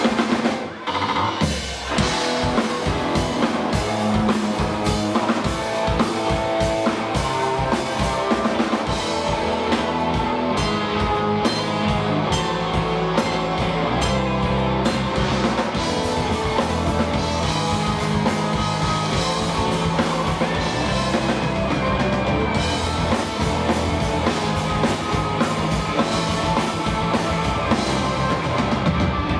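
Live rock band playing: a drum kit with bass drum and cymbals under bass and guitar.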